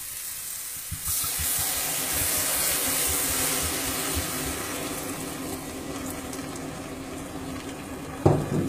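Red wine poured into a hot pot of sautéed onion, bacon, mushrooms and flour: it starts hissing and sizzling loudly about a second in as the wine hits the pan and deglazes it, then slowly dies down. A short bump near the end.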